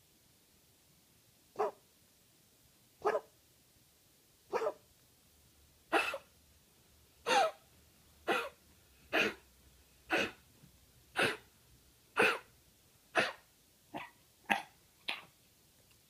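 A beagle coughing: about fourteen short, separate coughs, at first every second and a half or so, then coming faster, about once a second and closer together near the end.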